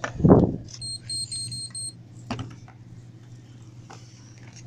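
Store checkout electronics beeping: about five short high beeps in quick succession about a second in, from a register or barcode scanner. A loud bump at the start.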